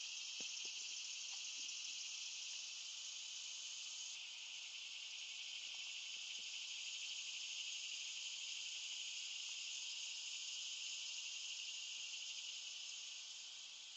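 Steady, high-pitched insect chorus, an unbroken hiss-like drone. A few faint soft clicks come in the first second and again about six seconds in.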